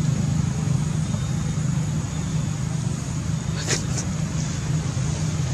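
Steady low hum under an even hiss, with two sharp clicks close together about three and a half seconds in.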